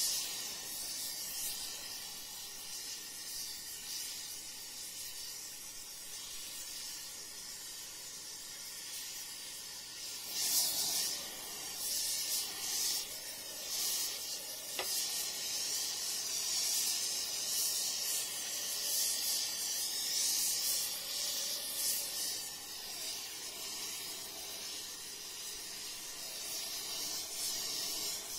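Hand torch flame hissing steadily as it heats a spot on a steel excavator stick to reshape the warped metal. The hiss grows louder and more uneven, surging and fluttering, from about ten seconds in.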